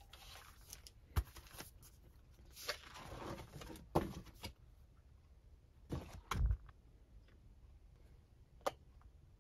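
Quiet handling noises on a tabletop: a spiral sketchbook is slid and lifted with a rustle of paper, among scattered light knocks and taps. The loudest are a low knock about six seconds in and sharp taps at about one and four seconds.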